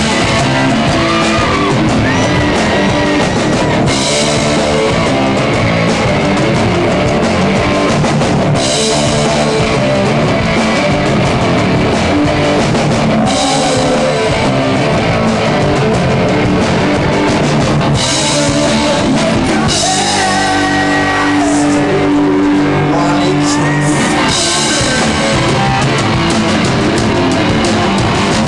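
Live rock band playing loudly: electric guitar, bass guitar and drum kit, with singing, and crashing cymbals that come back every four to five seconds.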